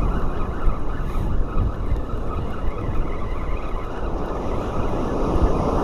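Wind buffeting the microphone in a steady low rumble, with ocean surf breaking behind it.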